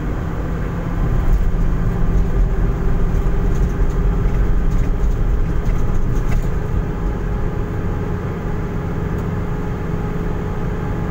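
Engine and road noise heard from inside a vehicle's cab while it is being driven: a steady low drone with an engine hum, a little louder for a few seconds early in the drive.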